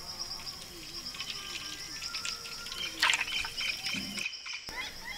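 Crickets trilling steadily in a high drone, with birds chirping. A sharp clatter comes about three seconds in, and the sound drops out briefly near the end.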